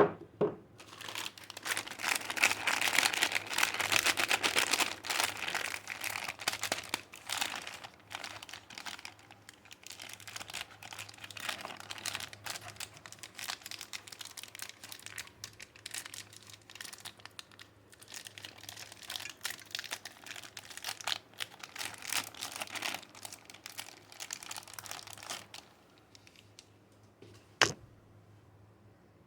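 Soap wrapper being unwrapped by hand: dense crinkling and tearing of the packaging, loudest in the first few seconds, dying away near the end. A single sharp click follows shortly after.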